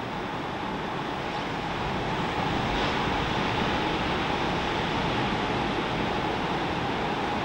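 Ocean surf breaking on a beach: a steady wash of waves that swells slightly about two seconds in.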